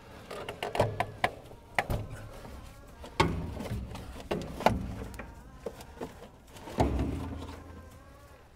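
Ratcheting strap filter wrench being worked on a hydraulic pilot filter canister to crack it loose: a string of irregular sharp clicks and knocks, with a few heavier clunks partway through.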